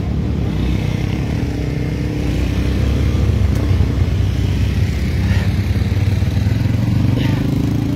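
Motor vehicle engine running steadily while on the move.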